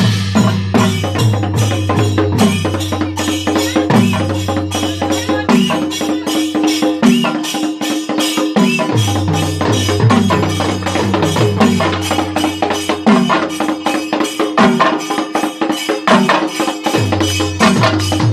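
An ensemble of Kerala chenda drums beaten with sticks, playing together with a drum kit and cymbals. They keep up a loud, fast, dense rhythm of strokes with recurring low drum tones.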